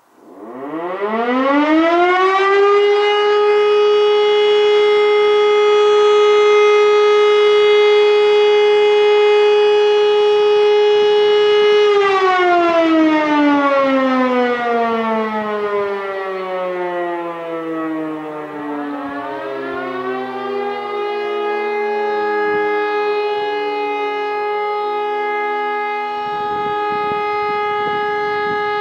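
Two E57 electromechanical civil-defence sirens sounding the test signal, one after the other. The first winds up from silence to a steady tone within about two seconds, holds it for about ten seconds, then winds down slowly. While it is still falling, a second E57 winds up to a steady tone and starts to wind down near the end.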